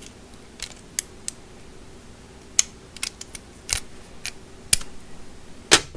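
Irregular sharp clicks and taps of hard plastic and metal screwdriver parts and packaging being handled, about a dozen in all, the loudest near the end.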